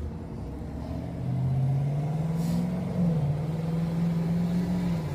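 A motor vehicle's engine running with a steady low hum that grows louder about a second in and holds.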